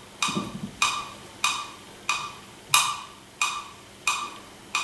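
A struck percussion instrument playing one short, ringing pitched note in a steady beat: eight strikes, about one every two-thirds of a second.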